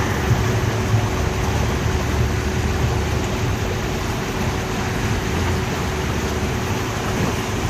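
River boat's engine running steadily: a low drone with a constant thin hum over a steady hiss.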